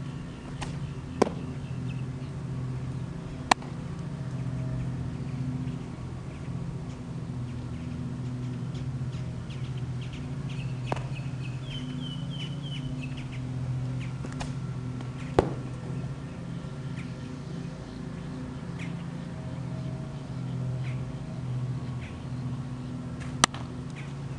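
Sharp pops of a baseball smacking into a leather glove, four times, spread well apart. A steady low hum runs underneath, and birds chirp briefly about halfway through.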